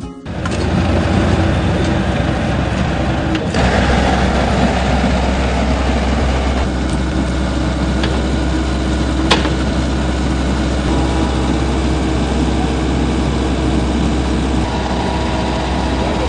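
Komatsu hydraulic excavator's diesel engine running steadily as the machine digs and dumps soil, getting louder about three and a half seconds in, with a single sharp knock about nine seconds in.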